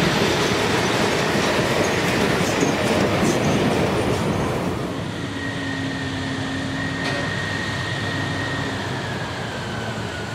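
Steam locomotive and tender rolling past close by, wheels rumbling and clattering on the rails, the noise falling away after about four and a half seconds. Then a thin, steady, high wheel squeal holds for several seconds, dropping slightly in pitch near the end.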